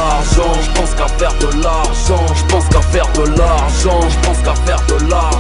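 Hip hop beat: deep held bass notes that shift pitch twice, sharp drum hits, and a melody line that bends up and down.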